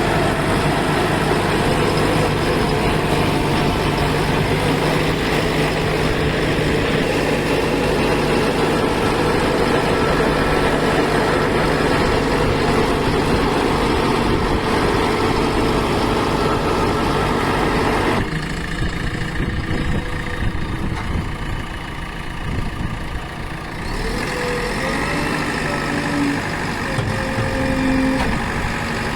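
JCB 3DX Plus backhoe loader's diesel engine running hard and steady, then easing to a lower, quieter run about two-thirds of the way through. A higher whine with slight rises and falls in pitch comes in near the end.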